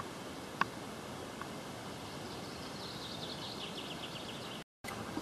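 Steady outdoor background hiss beside a reedy stream, with a couple of soft clicks near the start and, about halfway through, a quick run of high, rapid chirps lasting around two seconds.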